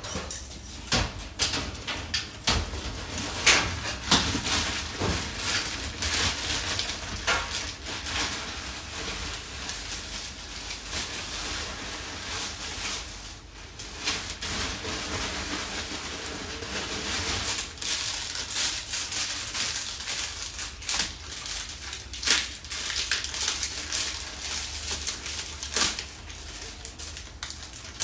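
Clothes rustling and things being handled at a metal locker, with scattered clicks and knocks throughout.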